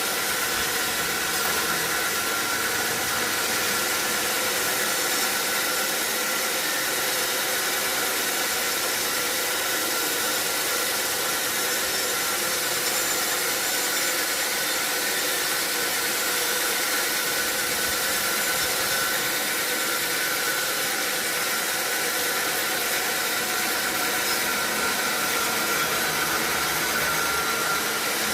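Sawmill machinery running steadily: an even, unchanging noise with a faint constant whine.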